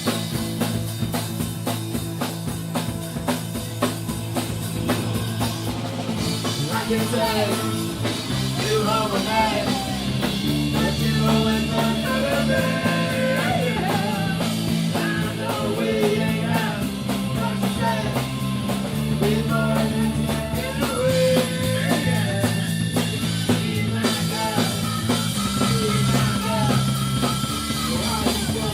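Rock band playing, with drum kit, bass and guitar. The band fills out and a melody line comes in about eight seconds in.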